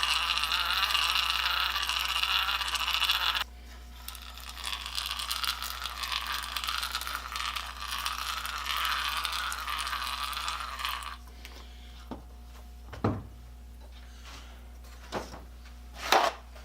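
Gearing of a hand-crank bench grinder whirring as it is cranked, its pitch wavering with the crank speed. It drops suddenly to a quieter whir a few seconds in and stops about eleven seconds in, after which there are a few sharp metal clicks and knocks.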